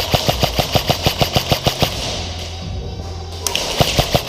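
Airsoft gun firing on full auto: a long burst of rapid, evenly spaced shots at about seven a second that stops about two seconds in, then after a pause a second burst near the end.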